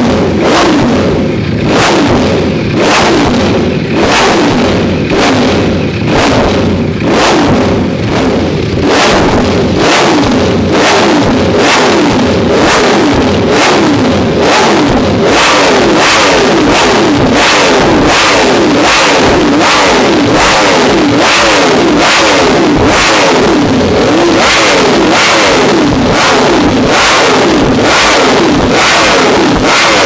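Ducati Streetfighter V4S's 1103 cc V4 engine revved on its stand in quick throttle blips, each a sharp rise and fall in pitch. The blips come about once a second at first and speed up to roughly one and a half a second later on.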